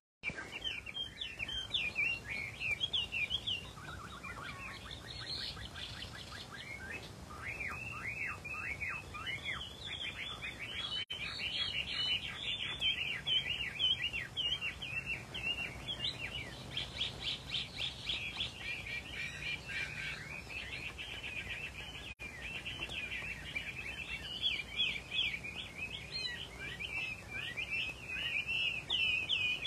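Hwamei (Chinese melodious laughingthrush) singing: a continuous song of rapid whistled notes, each phrase a quick run of the same note repeated before switching to another.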